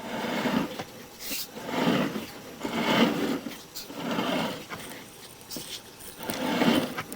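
A sewer inspection camera's push cable is pulled back out of the sewer line hand over hand. It makes a series of rubbing, scraping strokes, roughly one every second or so.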